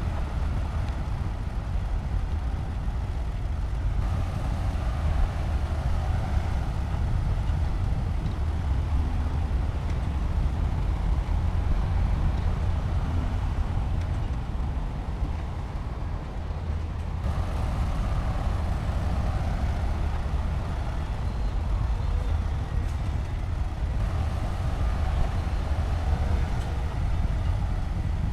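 Heavy diesel engine of a bulldozer running steadily with a deep rumble. A higher band of engine noise eases off about halfway through and comes back a few seconds later.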